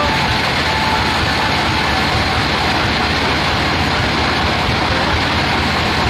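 Sawmill machinery running steadily, an even mechanical drone with no change in level.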